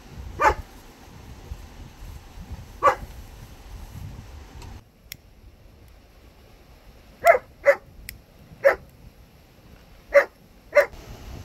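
A dog barking: single short barks at uneven intervals, some in quick pairs, seven in all.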